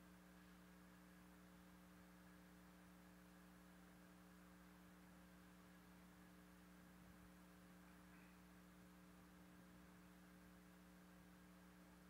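Near silence with a faint, steady hum made of a few low tones.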